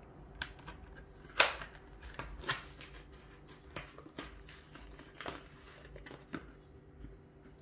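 Plastic blister pack of a Hot Wheels car being handled: scattered crinkles and sharp clicks of stiff plastic, the loudest about a second and a half in.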